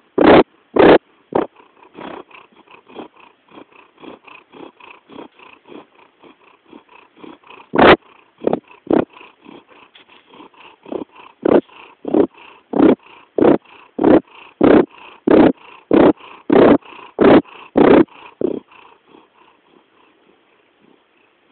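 A resting pet makes a rhythmic pulsing noise, about one and a half pulses a second, which its owner cannot decide is purring or snoring. The pulses are soft for several seconds, come back loud about halfway through, and fade near the end.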